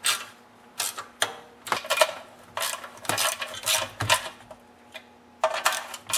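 Ratchet wrench clicking in short runs while the bolts holding a small engine's recoil starter housing are tightened, with brief pauses as the tool moves from bolt to bolt.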